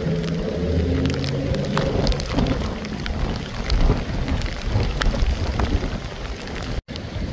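Heavy tropical-storm rain pelting a wet, flooded road, with gusty wind rumbling on the microphone. The sound drops out for an instant near the end.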